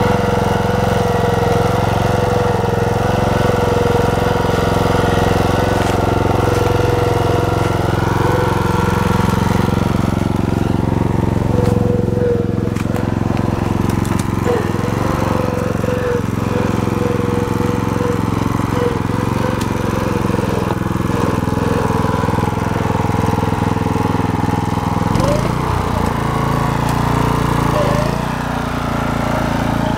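Walk-behind tractor engine running steadily while hauling a power barrow loaded with firewood, with a brief drop in level near the end.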